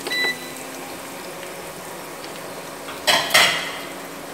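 Salted pork belly and garlic sizzling steadily in oil in a frying pan, with a metal utensil knocking against the pan: a short ringing clink at the start and a louder clatter about three seconds in.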